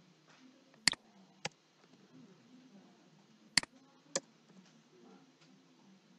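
Computer mouse and keyboard clicks: two pairs of sharp clicks, the two clicks in each pair about half a second apart, over faint room noise.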